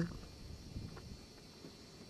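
Quiet outdoor ambience: a faint steady hiss with a thin high tone, and a couple of soft ticks about a second in.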